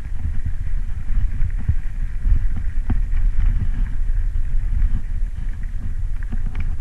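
Bicycle rolling fast down a rough gravel and rock road: a steady low rumble with many irregular knocks and rattles as the tyres hit stones.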